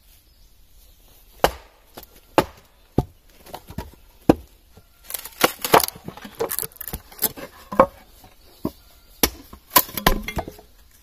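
A mallet strikes the spine of a froe four times, driving the blade into a western red cedar shake block. The froe is then levered, and the wood cracks and crackles in a quick run as the shake splits away along the grain.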